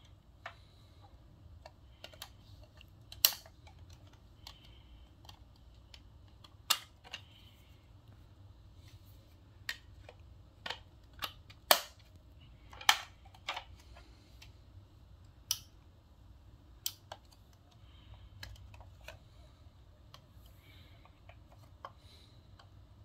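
Hard plastic clicks and knocks from a mint Starbucks Singing Lantern being handled and turned over: scattered sharp clicks at irregular intervals, the loudest about three, seven, twelve and thirteen seconds in.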